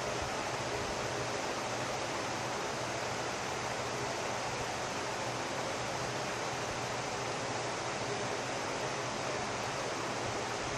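Steady, even hiss with a faint low hum underneath, unchanging throughout, with no distinct sounds.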